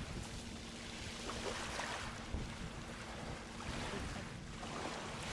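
Wind buffeting the microphone over open harbour water, with a faint steady low hum underneath.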